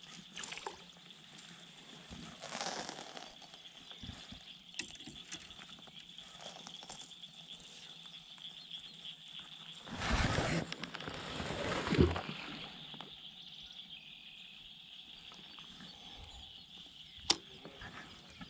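Heavy baitcasting catfish rod swung in a cast, a whoosh of rod and line about ten seconds in that lasts about two seconds. A faint steady high hiss runs underneath, with a few sharp knocks of handling gear, the sharpest near the end.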